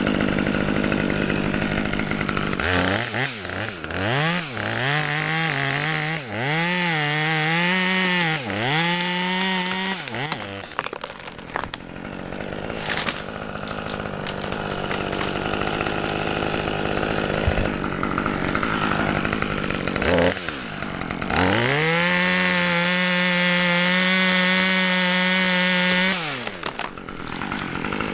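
Chainsaw cutting ash wood: it idles, then revs from about three seconds in with its pitch dipping and rising under load, settles back to a low idle, and near the end runs at steady high speed for about five seconds before dropping back to idle.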